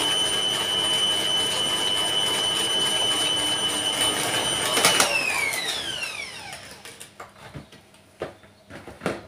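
Electric stand mixer running steadily at high speed, its whisks beating cake batter in the bowl. About five seconds in it is switched off and the motor's whine falls away as it spins down, followed by a few light clicks and knocks as the mixer arm is lifted.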